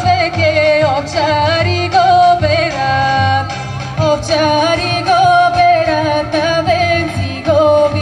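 Woman singing a Balkan folk song through a microphone and PA, her melody ornamented and quavering, over amplified instrumental accompaniment with a steady low beat.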